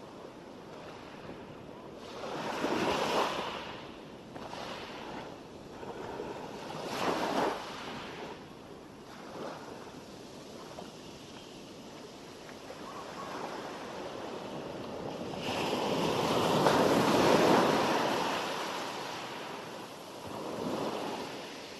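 Sea waves breaking and washing up a beach: several rushing surges of noise a few seconds apart, the longest and loudest a little past the middle.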